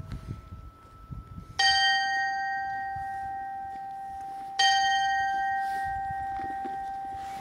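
A small carillon bell on a clockwork tower struck twice, about three seconds apart, on the same note; each strike rings on and fades slowly.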